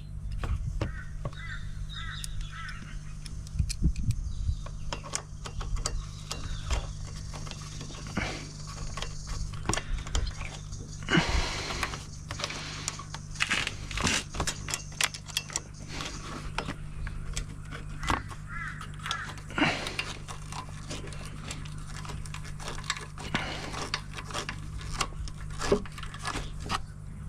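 Scattered clicks, knocks and small metal rattles of tools and parts being handled as a Honda Shadow VT750C motorcycle is put back together, busiest about halfway through, over a steady low hum.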